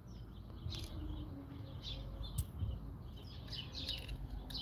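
Birds chirping in the background over a low outdoor rumble, with a single sharp click about two and a half seconds in.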